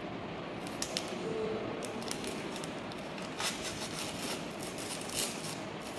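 Packaging crinkling and rustling as gloved hands open the sterile peel pack of a Copper T IUD. It is a string of small crackles, busiest in the second half, over a steady room hiss.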